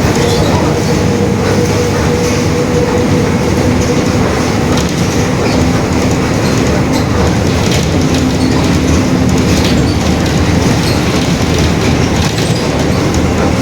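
Mercedes-Benz OF-1721 Bluetec 5 city bus driving, with its diesel engine and drivetrain running under a steady loud rumble, scattered rattles and clicks. The differential is growling audibly, heard as a steady whine-like tone that sits higher for the first few seconds and settles lower about halfway through.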